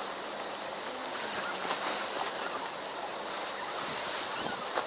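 Green nylon fabric of a LOGOS Space Base Decagon tent rustling and crinkling, with scattered light clicks, as the tent is spread out and its poles raised.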